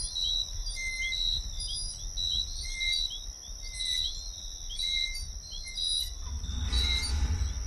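Night ambience: a steady high insect trill with short high chirps repeating about twice a second over a low rumble. About six seconds in, a louder low whoosh swells up and then fades.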